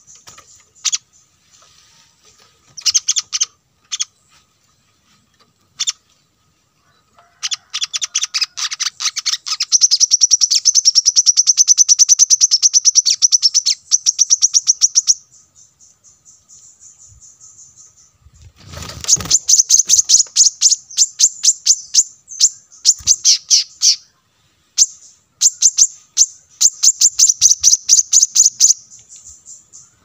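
Brown-throated sunbird calling in high, quick chirps: a few scattered notes at first, then a long fast trill of repeated notes, and after a pause several more rapid runs of notes.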